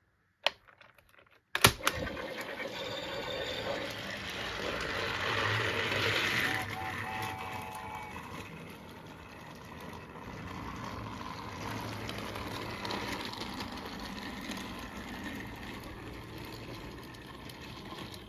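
A sharp click about a second and a half in, then a battery-powered toy train motor running steadily with its wheels clattering on plastic track.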